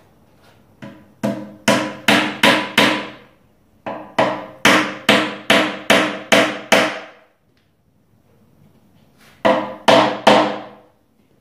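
Hammer tapping small wooden wedges into the split tops of the spindles where they pass through the bow of a Windsor chair, locking the glued joints. It comes in three runs of quick, evenly spaced blows (about six, then about eight, then three near the end), each blow ringing briefly.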